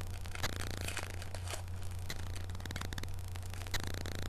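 Trading cards handled and flipped through by hand: papery rustling with many quick card clicks and slides, over a steady low electrical hum.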